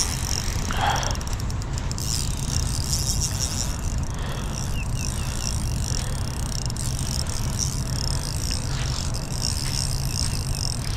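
Steady wind rumble on the microphone over a continuous high hiss, with no clear individual events.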